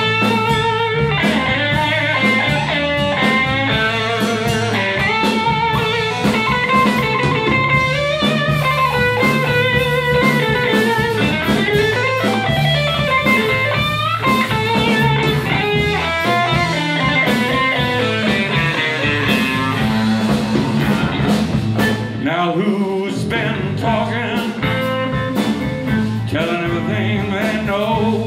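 Live blues band playing: an electric guitar takes a lead with bending notes over bass, drums and shaker, in a Latin-tinged groove.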